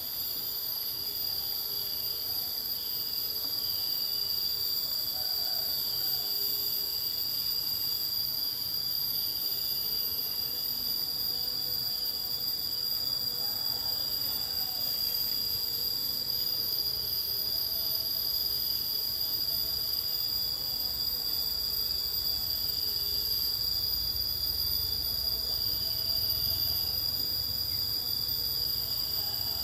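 Steady high-pitched chorus of insects, a continuous drone with no break, with a faint low rumble growing in the last few seconds.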